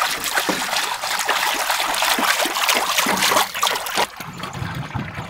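Sesame oil poured in thick streams from two tins into a large empty metal wok, splashing as it pools in the bottom. The pouring grows softer about four seconds in.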